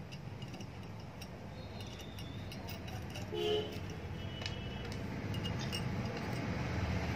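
Small metal parts of an electric iron's thermostat assembly (washers, screws, contact strip) clicking and clinking as they are handled and fitted, over a steady low hum. A short pitched sound comes about three and a half seconds in.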